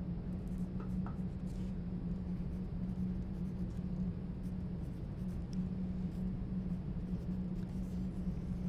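Steady low drone with a rough, scratchy texture and a few faint ticks.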